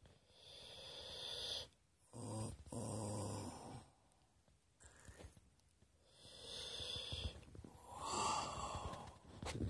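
Heavy breathing close to the microphone from a person eating a cheeseburger: a series of long, noisy breaths in and out, one carrying a low hum about two seconds in.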